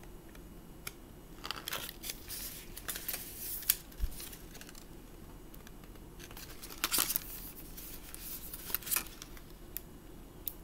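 Stiff card pages of a pop-up book being turned and handled: scattered rustles and scrapes of card, bunched about two seconds in and again about seven seconds in.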